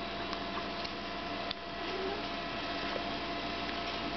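Steady low electrical hum of room tone, with a single faint click about one and a half seconds in.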